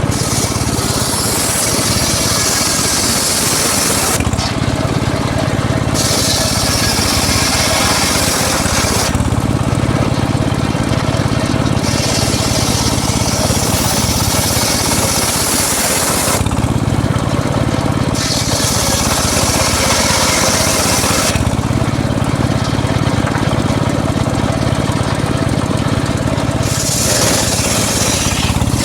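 Homemade circular saw running steadily, its blade cutting teak wood in repeated passes of a few seconds each, with a high ripping hiss that drops away in the short pauses between cuts.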